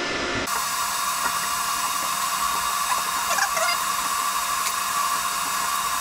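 Steady machine whine over a hiss, holding one high pitch, that cuts in abruptly about half a second in.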